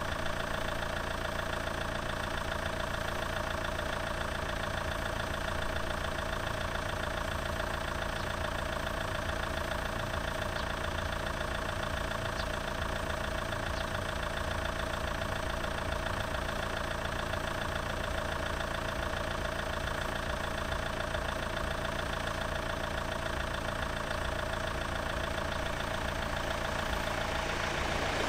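An engine idling steadily with an even hum. Near the end an approaching train starts to grow louder.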